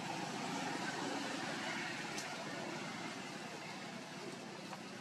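Steady outdoor background noise, with a faint click about two seconds in.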